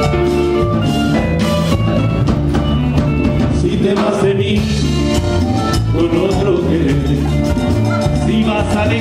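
Live dance band playing Latin-style dance music, loud and steady, with a driving bass and drum beat and a singing voice in places.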